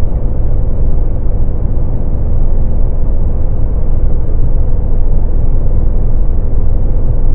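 Mercedes-Benz car cruising at highway speed, heard from inside the cabin: a loud, steady low rumble of road and wind noise with a faint steady hum.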